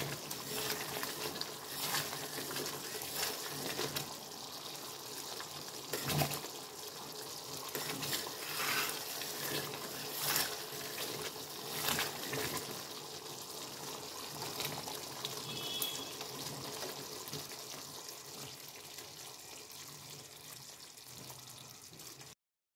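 Thick chana sheera bubbling and sputtering in a steel pan at its final, thickened stage, with a steady sizzling hiss. A metal spoon stirs and knocks against the pan a few times. The sound stops abruptly just before the end.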